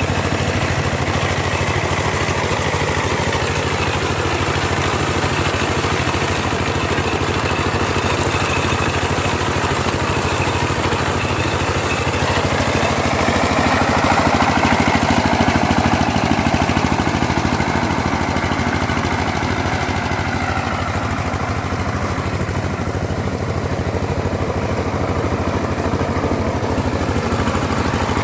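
Engine of a small combine harvester running steadily while harvesting wheat, swelling louder with a shift in pitch for a few seconds midway.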